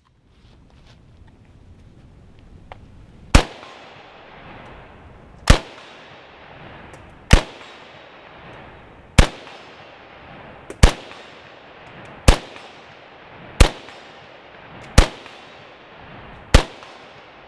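Yugoslavian SKS rifle firing 7.62×39 rounds in semi-automatic: nine single shots at a steady pace, about one every one and a half to two seconds, each with a short echoing tail. The first shot comes about three and a half seconds in.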